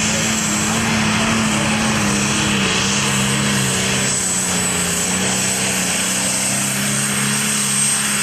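Heavy super stock pulling tractor's turbocharged diesel engine running flat out under full load while pulling the sled, a loud steady drone with a high steady whine above it.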